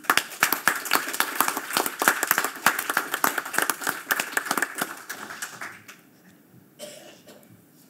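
Audience applauding, starting sharply and dying away after about six seconds, followed by a brief rustle near the end.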